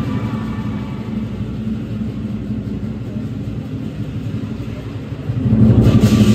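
Lion dance drum beaten in a fast, low, rumbling roll. Near the end the accompaniment swells louder and cymbals crash in.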